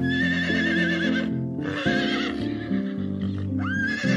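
A horse whinnying three times in long, quavering calls, the third starting near the end, over background music with held notes.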